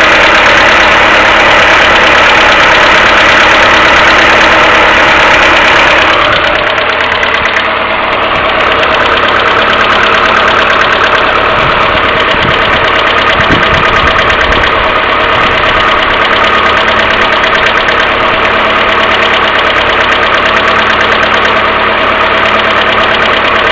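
Mercedes A-Class W168 1.6 petrol four-cylinder idling cold with a rapid, steady knocking from worn hydraulic valve lifters, the common cold-engine fault of this car. Beneath it runs a continuous hum from the timing chain tensioner, which the owner says needs cleaning or replacing. From about six seconds in the sound turns slightly quieter and duller.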